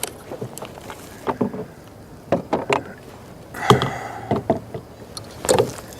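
Irregular knocks, clicks and rattles of gear being handled against a plastic fishing kayak's hull, with a busier cluster of knocks a little past the middle.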